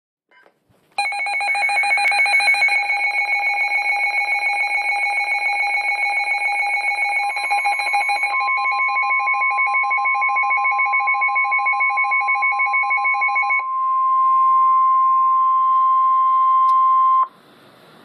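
A weather alert radio's alarm beeps in a rapid pulsing pattern. About seven seconds in, the steady 1050 Hz NOAA Weather Radio warning tone joins it, the signal that a warning message is about to be read. The pulsing alarm stops near fourteen seconds, and the steady tone cuts off about three seconds later, leaving faint radio hiss.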